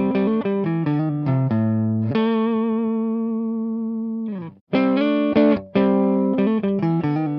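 Gibson Non-Reverse Firebird electric guitar played through an Orange OR50 tube amp head: a strummed chord riff, then one chord left ringing for about two seconds with a slight wavering. After a brief break a little past halfway, the riff starts again through an Orange OR100 head.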